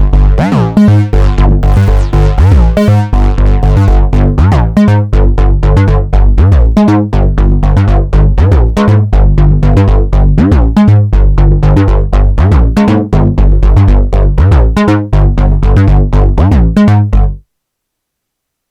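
Korg Minilogue XD analog synthesizer playing a sequenced pattern: a deep repeating bass line with sharp, punchy notes and swooping pitch sweeps over it. It stops abruptly about seventeen seconds in.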